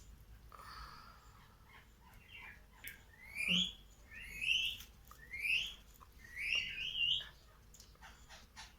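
A bird calling: four loud rising chirps in a row, a second or so apart, the last one longer and wavering.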